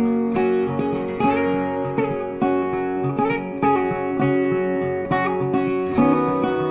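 Background music: acoustic guitar picked and strummed, a new note or chord starting about every half second.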